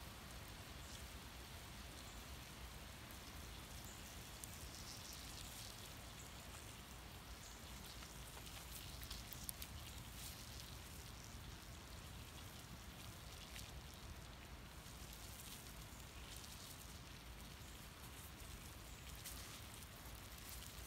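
Faint crackling and hissing of a small wood fire burning in a tin-can hobo stove under a pot of water that is heating, with scattered small ticks and one slightly louder crack about halfway through.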